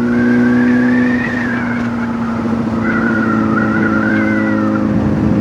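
Honda motorcycle engine running at a steady speed under way, with a high whine wavering above it.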